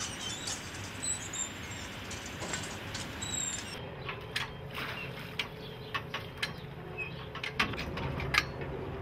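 Steady rush of water with a few short, high bird chirps. About four seconds in, the sound changes to a steady machine hum with irregular sharp clicks and knocks.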